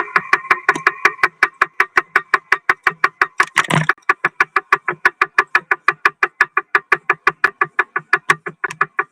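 Music with a fast, evenly chopped pulse of about six or seven beats a second over a steady pitched drone, with a brief louder swell a little past three and a half seconds.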